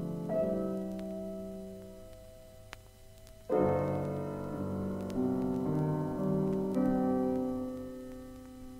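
Solo piano playing a slow passage of a classical art-song accompaniment: chords that fade away, a quiet stretch, then a stronger chord about three and a half seconds in followed by further chords. A faint click from the vinyl record surface sounds in the quiet stretch.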